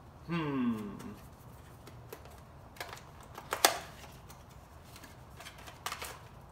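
Small cardboard box being opened and handled by hand: scattered clicks and crinkles of the flaps and packaging, with one sharp snap about three and a half seconds in.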